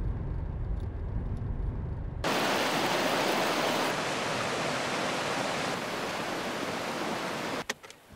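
Low road rumble inside a moving car's cabin, cutting suddenly about two seconds in to the steady rushing of a creek running over rocks.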